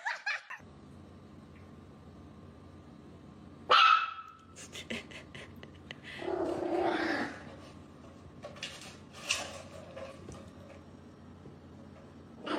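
A dog barking: one sharp, loud bark about four seconds in, then a longer, lower bark around six to seven seconds, with a few short, quieter sounds in between and after.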